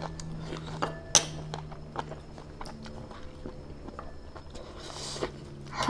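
Light taps and clinks of a metal spoon and chopsticks against ceramic bowls at the table, with one sharper clink just over a second in, over a low steady hum. A short hiss comes near the end.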